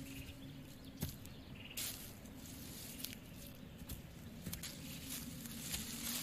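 Footsteps on dry fallen leaves: faint, irregular rustles and crackles over a faint steady low hum.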